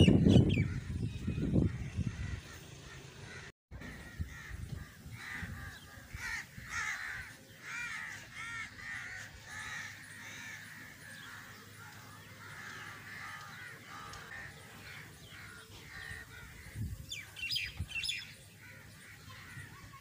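Crows cawing over and over, harsh repeated calls that come thickest in the middle and again near the end. A brief loud low rumble opens it.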